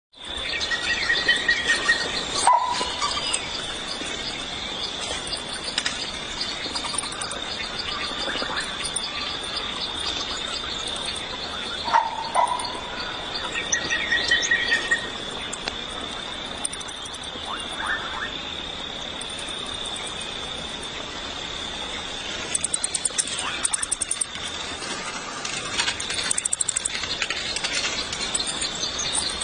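Steady, high-pitched insect drone with bird calls over it: short trills and calls a few times in the first half, and quick, very high chattering calls in the later part.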